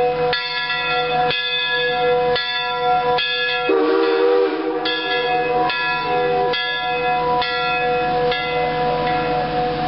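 Steam locomotive bell on CNJ 113 ringing, about one stroke a second, each stroke ringing on, until it stops about eight and a half seconds in. A brief lower wavering sound cuts in about four seconds in.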